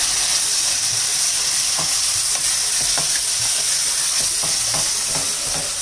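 Chopped tomatoes frying with onion, ginger and garlic in hot oil: a loud steady sizzle while a spoon stirs the masala, with scattered short scrapes and clicks against the pot.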